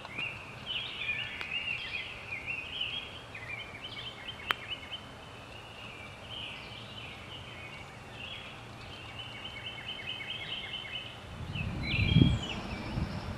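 Wild birds singing, a steady chorus of short chirps and trills. There is one sharp click about a third of the way in and a low rumble near the end.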